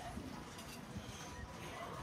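Busy pedestrian street ambience: a steady murmur of passers-by, with faint voices near the end.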